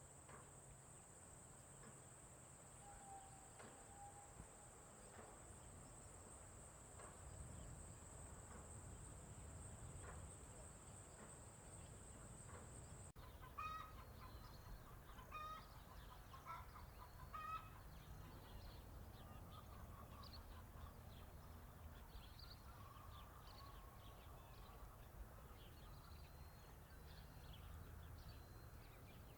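Faint farm ambience. For the first half, insects trill with a steady high buzz. Then the sound cuts abruptly to chickens clucking in a run of short repeated calls, with small birds chirping.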